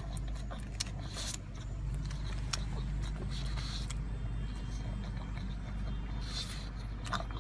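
Car engine idling, a steady low hum heard from inside the cabin, with a few short snuffles and mouth clicks from a pug.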